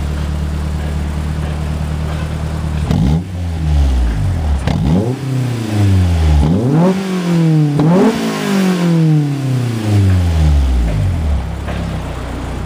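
Honda S2000's four-cylinder engine idling, then revved: two quick blips about three and four and a half seconds in, then three longer revs, each rising fast and falling slowly back, settling to idle near the end.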